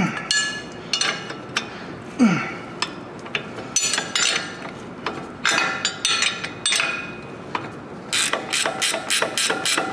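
Hand socket ratchet clicking as it is worked on the upper ball joint stud of the front suspension: scattered clicks, then a fast even run of ratchet clicks, about four to five a second, from about eight seconds in. Two short low falling groans come near the start and about two seconds in.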